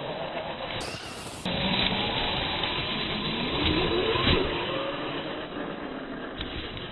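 Losi Rock Rey RC rock racer driving: its electric motor whines and rises in pitch as it accelerates, over a rushing noise from the running car.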